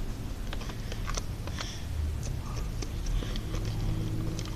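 Freshly activated glitter-glue slime being mixed and squished, giving scattered small wet clicks and squelches. The slime is still watery, not yet set.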